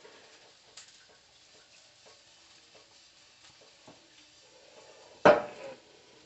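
Small clicks and handling noises in a quiet kitchen, then one loud sharp knock about five seconds in that rings briefly.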